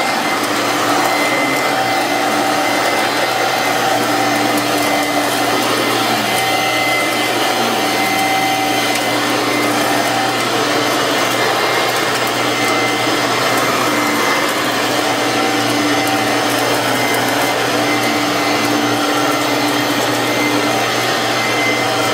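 Vintage Kenmore 6-amp two-speed twin-fan vacuum cleaner running steadily. It is loud: a motor whine over rushing air.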